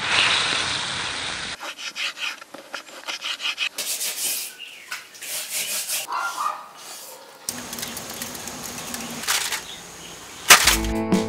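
Short handling sounds cut one after another: a wooden spatula scraping and stirring shrimp in a steel pot, chopsticks clicking and scraping on a rice bowl while eating, then aluminium foil crinkling. Guitar music comes in near the end.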